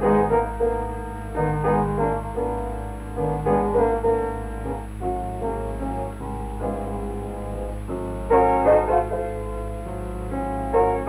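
Background piano music, a run of melodic notes over a steady low hum.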